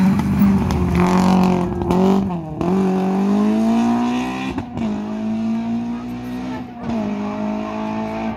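Rally car on a gravel stage, its engine running at high revs with a hiss of gravel under the tyres; the engine note drops briefly and climbs again about two and a half, four and a half and seven seconds in.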